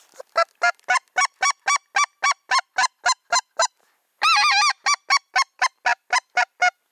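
Hand-blown goose call sounding loud, evenly spaced honks at about four a second, with a quick run of notes a little past halfway: a hunter calling to a passing flock of geese.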